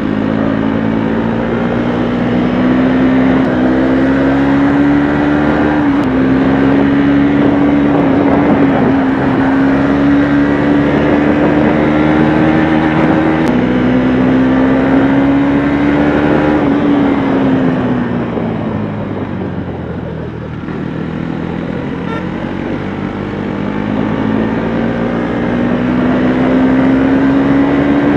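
Motorcycle engine running at a steady cruise under wind rush. About seventeen seconds in its pitch falls away for a few seconds as the revs drop, then climbs again.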